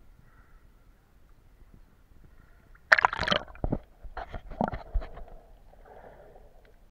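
Seawater splashing and gurgling around the camera as it plunges under the surface about three seconds in, then a muffled underwater wash with a few bubbles.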